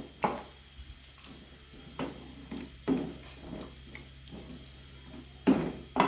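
Wooden spoon stirring mutton pieces and yogurt in a steel pot, knocking and scraping against the pot's side about five times at irregular intervals as the yogurt is worked in so it does not form lumps.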